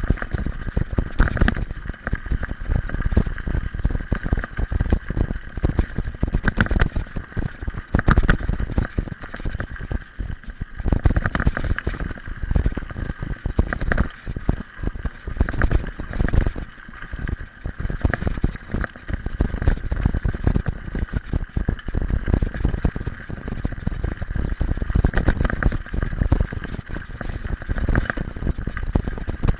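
Mountain bike rolling over a gravel road, heard through a camera mounted on the bike: a steady rumble of tyres on loose stones, frequent irregular rattles and knocks from the jolting bike, and wind buffeting the microphone.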